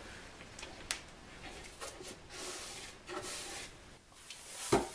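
Quiet handling sounds of hands and tools on a plywood sled on a workbench: soft rubbing and shuffling, a sharp click about a second in, and a dull thump near the end.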